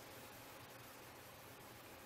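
Near silence: faint room tone with a light steady hiss.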